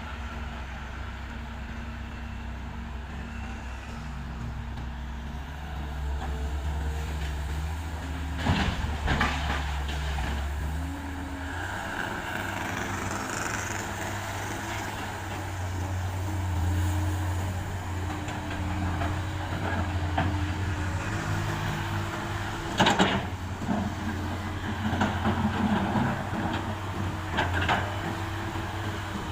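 Komatsu PC200 excavator's diesel engine working, its pitch shifting up and down under hydraulic load. Occasional short knocks and clatters, a few of them near the end.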